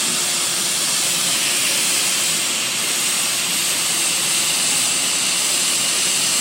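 Hot-air plastic welding gun blowing a steady stream of compressed zero air in place of nitrogen, a constant even hiss.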